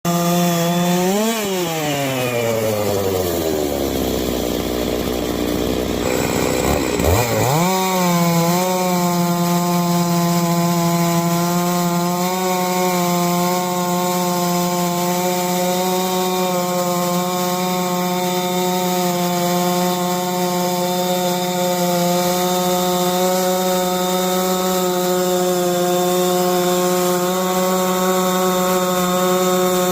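Stihl MS660-clone two-stroke chainsaw on a Norwood PM14 chainsaw mill. It revs briefly, drops back to idle for a few seconds, then goes to full throttle about seven seconds in and runs at a steady high pitch, ripping eastern red cedar.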